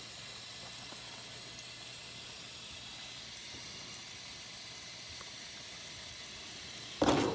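Steady, even background hiss with no distinct events, and a voice breaking in loudly near the end.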